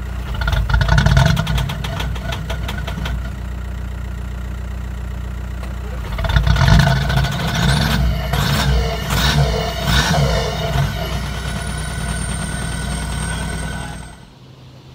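Volkswagen Jetta TDI diesel engine running cold after a start, steady at idle with two louder spells of throttle, briefly about a second in and then a run of quick revs rising and falling between about six and eleven seconds. It cuts off suddenly near the end.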